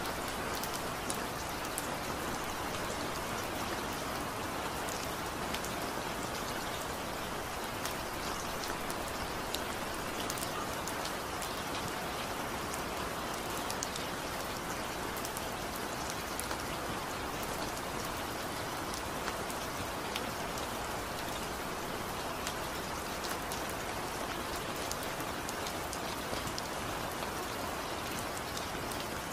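Steady rainfall: an even, dense hiss of rain with many small drop ticks scattered through it.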